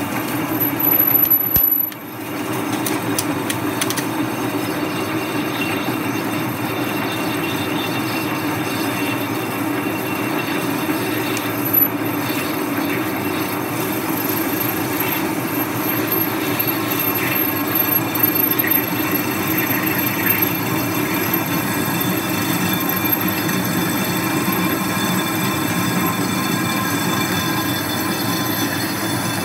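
Metal lathe taking a heavy roughing cut through the cast flange of a Volvo portal-axle stub axle: a steady metal-on-metal cutting noise over the running lathe. The cut eases for a moment about two seconds in.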